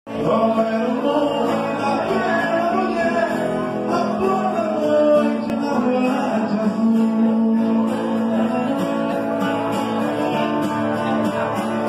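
Guitar-led music with singing.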